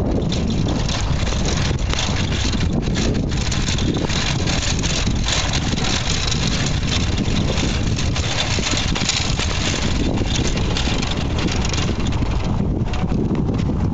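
Steady wind rushing over the microphone of a camera riding on a moving bicycle, with the low rumble and occasional knocks of the tyres rolling over cobblestones.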